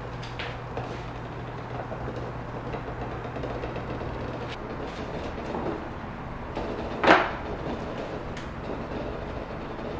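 A pot of eggs boiling on an induction cooktop gives a steady rumbling hiss, with a low hum that stops about halfway through. About seven seconds in there is a single sharp knock.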